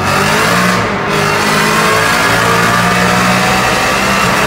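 BMW E92 M3's 4.0-litre V8 pulling hard in third gear, revs climbing until the shift lights come on. It is heard from inside the cabin in a tunnel.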